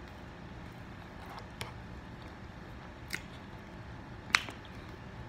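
Someone eating pancakes: quiet chewing broken by three short sharp clicks of a fork against the plate, the loudest about four seconds in.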